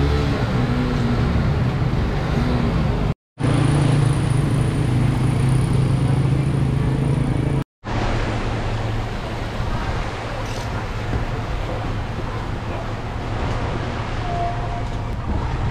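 Small motorcycle and motor-tricycle engines running as they drive through floodwater, over a steady wash of noise. The sound drops out briefly twice, about three and about eight seconds in.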